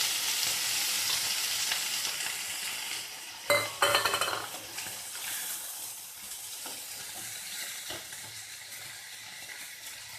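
Chopped vegetables sizzling in hot oil in a pan as cabbage goes in and is stirred. A metal spoon clatters against the pan about three and a half seconds in, and the sizzle gradually dies down.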